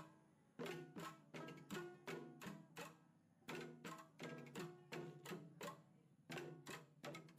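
Faint background music: a run of short, evenly paced pitched notes with brief pauses near the start and about three seconds in.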